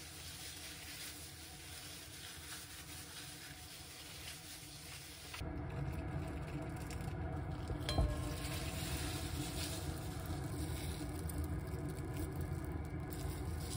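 Quiet food-prep handling over a steady low background hiss: a plastic bag of minced meat being handled, then a single sharp snip of kitchen scissors a little past halfway as the bag's corner is cut off for piping.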